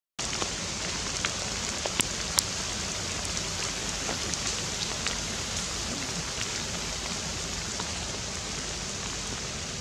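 Steady rain-like hiss of forest background noise, with scattered faint ticks and a couple of sharper clicks about two seconds in.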